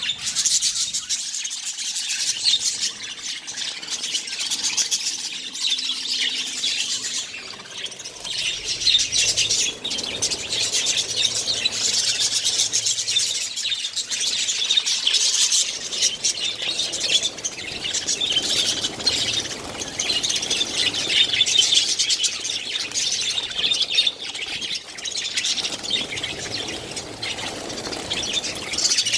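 A colony of budgerigars chirping and chattering, many birds at once, in a continuous dense twitter of quick high calls.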